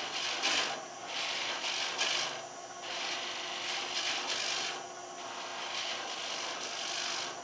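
A 1-inch gouge cutting a spinning wooden spindle on a Shopsmith lathe, roughing away excess stock: a hissing, scraping shear of wood chips that swells and fades about once a second as the tool moves along the work.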